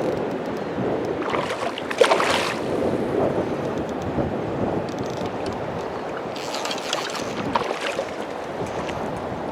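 River water flowing over stones in a steady rush, with two louder bursts about two and seven seconds in.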